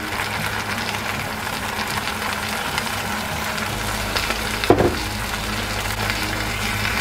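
Pork loin slices sizzling in a frying pan in sake and freshly poured soy sauce, a steady hiss. One short clink about two-thirds of the way through.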